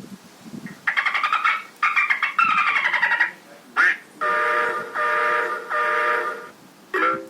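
Electronic sound effects played through a car's add-on loudspeaker system. First come two buzzy, rapidly pulsing sounds, the second falling in pitch. A short rising sound follows, then three equal steady blasts of a multi-tone horn-like chord.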